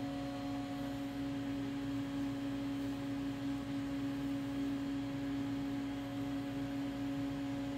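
Steady machine hum with one strong held tone and fainter higher overtones, from the Haas CNC lathe standing powered up.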